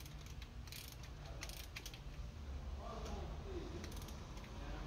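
Faint, irregular clicking of a hand ratchet on a long extension, turning spark plugs out of or into an Audi RS6's V8 during a spark plug change.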